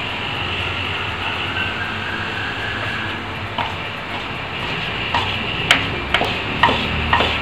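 A spatula scraping flour out of a plastic bowl and tapping against it, with about six sharp light taps in the last two and a half seconds, over a steady background hum and hiss.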